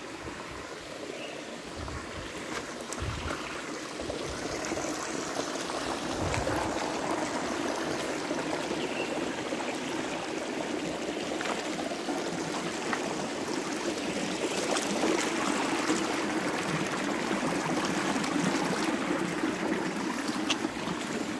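Shallow rocky stream running and trickling over stones, a steady rush that grows a little louder a few seconds in. A few low thumps sound in the first seconds.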